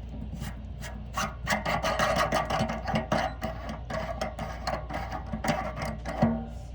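Hands working a shower head's threaded inlet and its rubber O-ring: a busy run of rubbing, scraping and small plastic clicks that starts about a second in, over a steady low hum.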